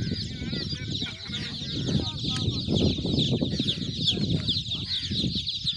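A crowd of newly hatched chicks peeping all at once: a dense, continuous chorus of short, high-pitched, falling peeps, over a low rumbling noise.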